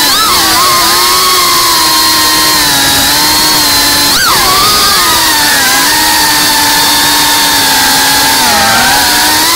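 Geprc Cinelog 35 FPV drone's brushless motors and propellers whining in flight, heard from the onboard camera. The pitch wanders up and down with the throttle, with quick sharp punches just after the start and about four seconds in.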